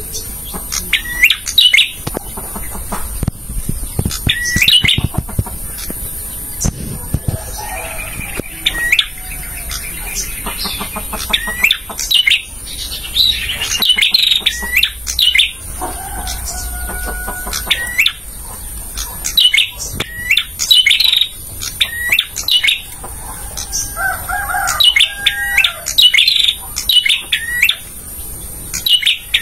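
Male prinia (prenjak) singing a fast, continuous run of sharp, high chirps in rapid clusters, with a few lower, longer whistled notes mixed in now and then.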